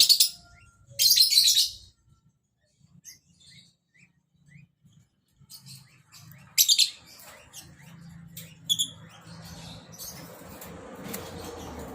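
Lovebirds chirping in short, high-pitched bursts, loudest right at the start, about a second in, and around six and a half seconds in, with scattered single chirps between.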